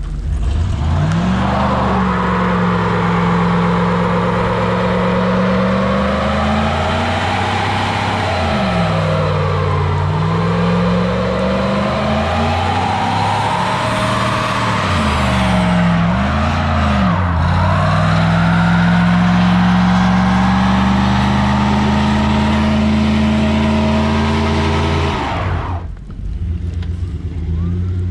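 A 1994 Dodge pickup's engine revved hard and held high while spinning donuts in snow, its pitch dipping and climbing again a few times over the hiss of spinning tyres. The revs drop away sharply near the end.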